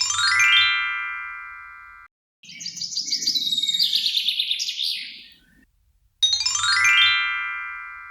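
A sparkling chime sweep: a quick run of bell-like notes that rings on and fades over about two seconds. About half a second later comes a rapid bird-like twittering for some three seconds, then the same chime sweep again near the end.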